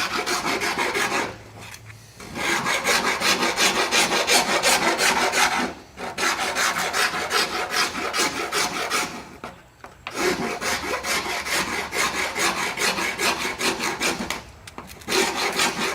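Coarse half-round hand file rasping back and forth on the edge of a hole cut in fiberglass body panel, in runs of quick strokes broken by several short pauses. The hole is being enlarged because it is a little snug for the plug.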